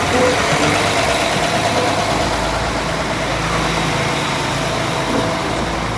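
Northern Class 195 diesel multiple unit passing slowly over a level crossing: steady diesel engine drone with the rumble of wheels on the rails, the low rumble growing about two seconds in.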